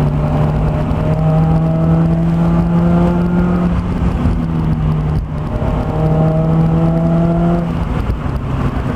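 Honda S2000's four-cylinder engine through an HKS exhaust and test pipe, pulling under load with its pitch slowly rising. It dips briefly about five seconds in, then climbs again.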